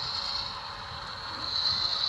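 HO scale model diesel switcher with freight cars running on the track: a steady mechanical whir of the locomotive's motor and gearing and the wheels on the rails, easing a little around the middle and rising again near the end.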